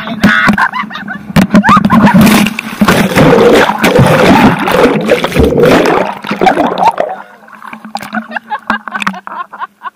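Seawater splashing and churning over the camera's microphone as a rider is thrown off a towed inflatable into the sea, with short shouts. It eases off after about seven seconds. A steady low hum runs underneath.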